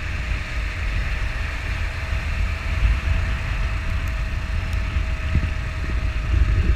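Honda NX400 Falcon's single-cylinder engine running at a steady cruise, holding one even note, under heavy wind rumble on the microphone.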